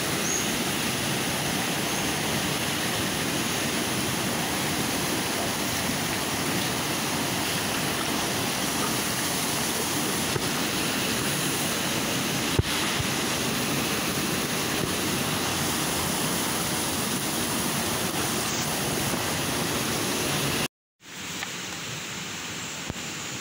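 Shallow stream rushing over rocks, a steady, even wash of water noise. Near the end it cuts off abruptly and gives way to a quieter, steady hiss.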